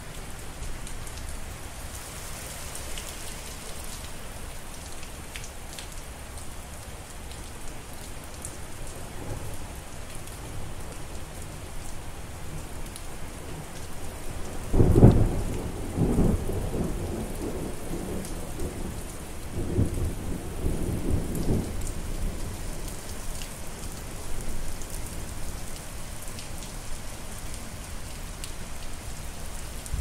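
Steady rain falling, with a loud thunderclap about halfway through that rolls on in low rumbles for several seconds.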